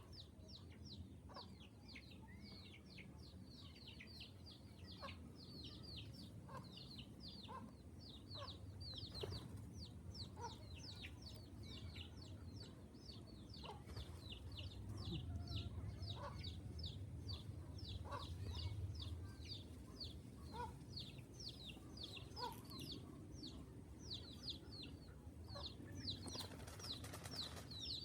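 Birds chirping in a steady, rapid run of short, high, falling notes, several a second, with occasional lower clucking notes like those of chickens.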